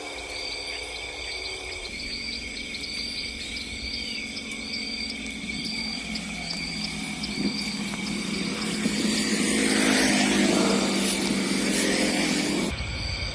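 Insects chirping outdoors: a short chirp repeats about twice a second over a steady high drone. From about six seconds in, a low humming tone joins them and grows louder, then stops abruptly near the end.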